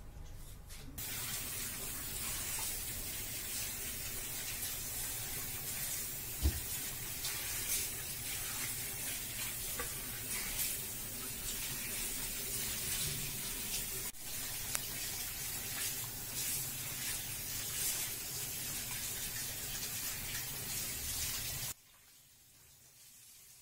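Pot of pepper marinade at a rolling boil: a steady bubbling hiss with small ticks, and a single low knock about six seconds in. The sound cuts off abruptly near the end.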